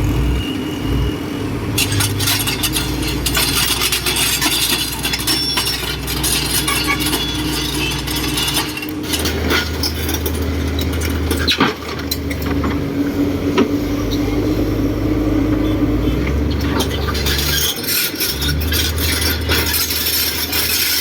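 Heavy earthmoving machinery at work: a diesel engine running, its pitch stepping up and down several times, with frequent metallic clanks and clicks.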